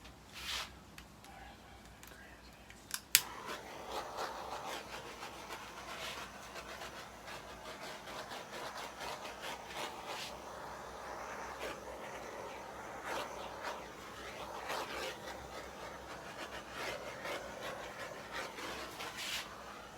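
A sharp click about three seconds in, followed by continuous rubbing and scraping with many small ticks.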